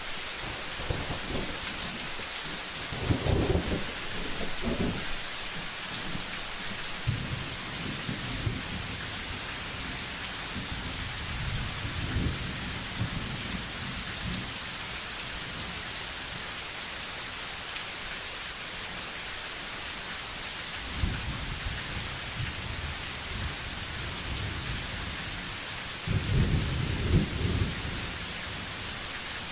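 Steady rain with several low rolls of thunder, the loudest about three seconds in and again near the end.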